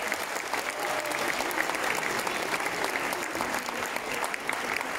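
Audience applauding steadily, a round of clapping from many hands.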